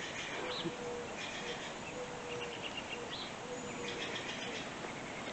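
A dove cooing, a series of low, even notes about half a second each, repeated every second or so, with small birds chirping higher up.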